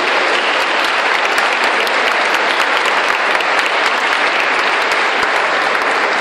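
Congregation applauding steadily, many hands clapping at once.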